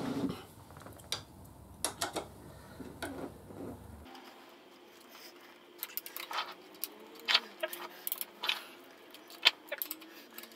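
Irregular metallic clicks and clinks of a hand tool on a long extension as the clutch cover bolts are run in on a Kawasaki Vulcan 1500 engine.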